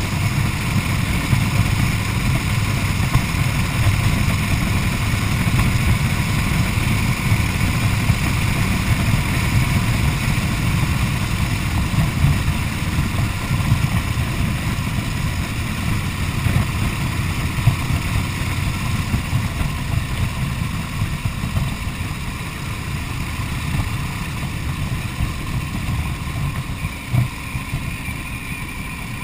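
1929 Harley-Davidson JDH two-cam V-twin engine running steadily under way, with wind noise over it. The engine gets gradually quieter in the last few seconds, and there is one short knock near the end.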